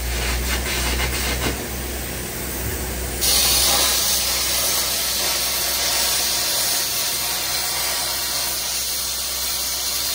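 Steady hissing of metal-cutting work on heavy steel, over a low rumble in the first few seconds. About three seconds in, a louder, brighter hiss starts abruptly and holds steady.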